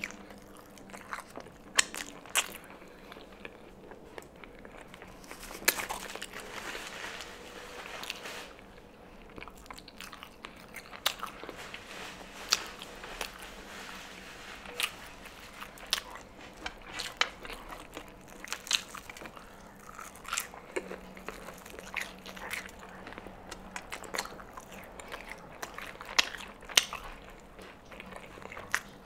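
Close-up sounds of a person chewing and biting crispy Popeyes fried chicken: irregular sharp crunches of the breading, with wet chewing in between.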